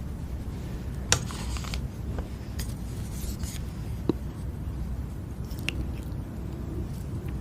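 Close-miked handling sounds: a sharp click about a second in followed by a short crinkly rustle, another rustle around three seconds in, and a few scattered light clicks, over a low steady hum.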